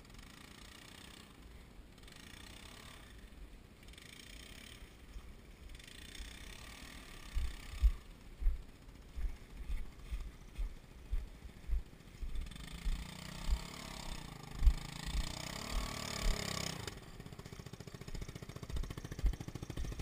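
Footsteps walking uphill through dry fallen leaves, a regular thump about every half to two-thirds of a second that starts about a third of the way in, with louder rustling of the leaves for a few seconds past the middle before the steps stop.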